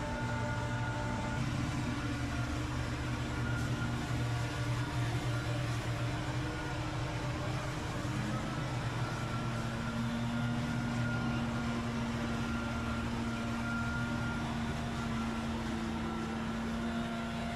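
Engine of outdoor power equipment running steadily, holding a constant speed, with a slight change in pitch about halfway through.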